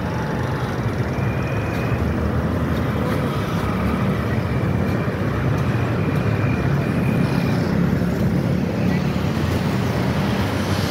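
Steady road traffic noise with a low rumble, and a faint thin whine held for a few seconds in the middle.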